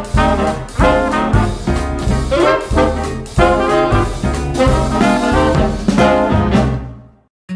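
Upbeat background music with a strong, regular beat, fading out about seven seconds in.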